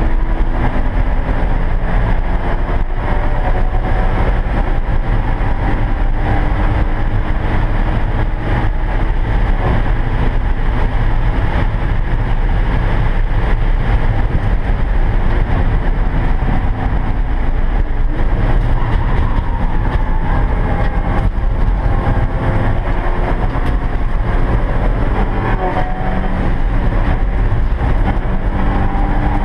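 Porsche 944 race car's four-cylinder engine heard loud from inside the cabin, running hard with heavy road and wind noise as the car accelerates up to about 108 mph, then dropping in pitch as the car slows for a corner.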